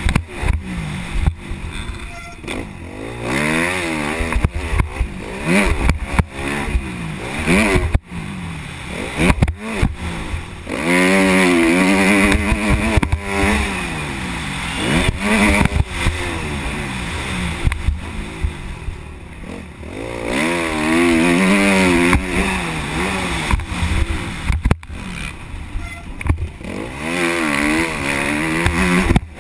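Motocross dirt bike engine heard close up from the bike, revving up and falling back again and again as it accelerates and shifts along the track. Sharp knocks are scattered through.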